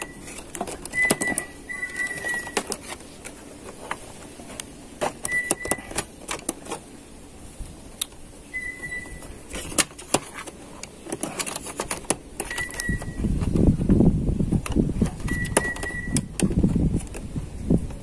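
Clicks and knocks of plastic and sheet-metal parts being handled and pressed into place in an all-in-one PC's chassis, growing into louder rubbing and knocking in the last few seconds. A bird gives a short high chirp every few seconds in the background.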